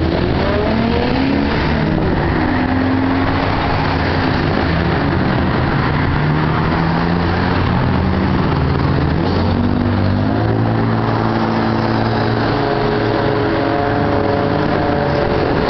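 Road traffic: cars driving past on a multi-lane road, their engine notes gliding up and down as they pass, over a steady low engine hum and tyre noise.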